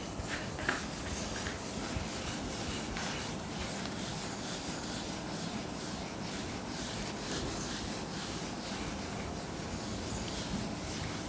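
Writing on a board: soft scratching and rubbing strokes over a steady room hiss.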